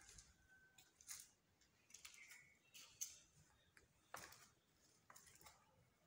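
Faint footsteps on marble stair treads while walking down a staircase: soft irregular taps and scuffs about once a second.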